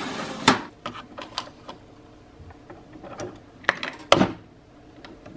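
A pod drawer sliding, then a series of sharp plastic clicks and knocks as a coffee pod is handled and the lid of a single-serve pod coffee maker is worked, the loudest clicks about four seconds in.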